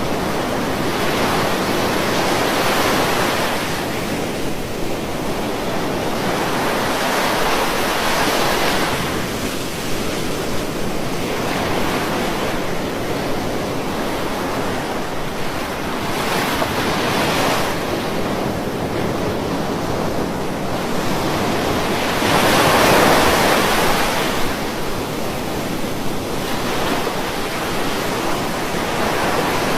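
Ocean waves breaking and washing on a beach, a steady surf rush that swells every few seconds, with one bigger wave a little past two-thirds of the way through.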